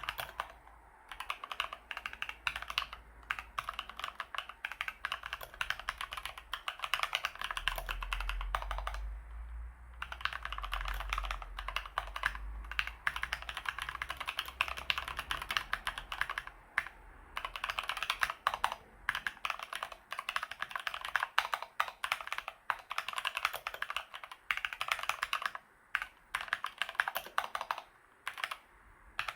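Fast, continuous typing on a Keychron K2 mechanical keyboard, the keys clacking in dense runs with brief pauses about nine seconds in, around seventeen seconds in and near the end.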